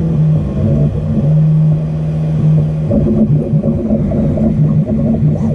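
Prusa i3 MK3S+ 3D printer printing, its stepper motors sounding steady tones that jump to a new pitch every second or two as the print head and bed change speed and direction.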